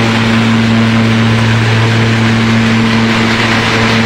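Hazelnut thresher (patoz) running at a steady speed: a constant low machine hum with a dense rushing noise over it.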